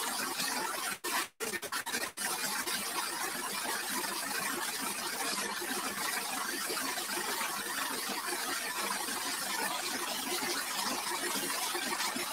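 Jet of water spraying onto a tractor-mounted rotavator, a steady hiss of spray hitting metal that cuts out briefly a few times between one and two seconds in.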